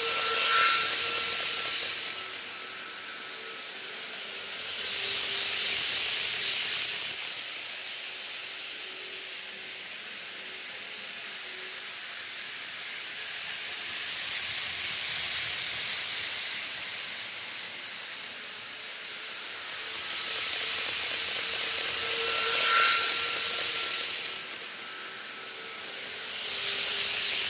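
Model Shinkansen trains running on the layout track: a hissing whir of small motors and wheels on rail that swells as each train passes close and fades again, about five times, over a thin steady high tone.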